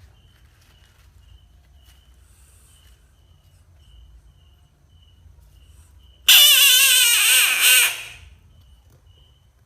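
Frog's distress scream: one loud, wavering, high-pitched scream starting about six seconds in, lasting under two seconds and trailing off.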